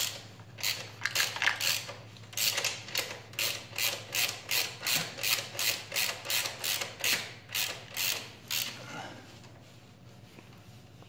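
Socket ratchet wrench clicking in quick, even strokes, about three a second, as a 17 mm socket is worked on the motorcycle's top rear-shock mounting bolt to loosen it; the clicking stops a couple of seconds before the end.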